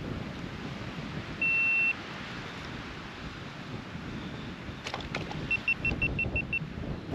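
Strong wind buffeting the microphone. About a second and a half in, a single electronic beep lasts half a second. Near the end come a few clicks, then a quick run of about seven short beeps at the same pitch.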